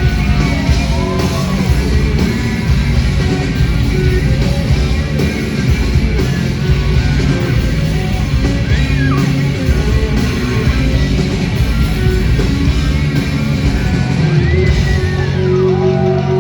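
Punk rock band playing live: electric guitars, bass and drums at full volume, with singing and yelled vocals, ending on a held chord.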